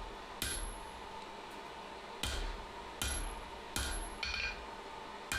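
Hammer striking steel on an anvil about six times at uneven intervals, each blow sharp and ringing, over a steady hum.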